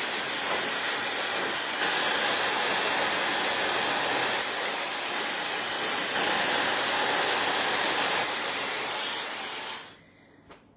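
Handheld hair dryer blowing steadily, louder from about two seconds in, then switched off near the end.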